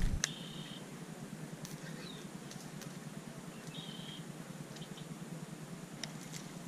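Quiet lakeside background noise with two short high chirps, and a few light clicks near the end as hands work a baitcasting reel.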